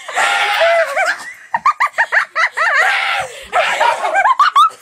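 Children imitating monkey calls: quick runs of high-pitched, short rising whoops and shrieks, mixed with laughter.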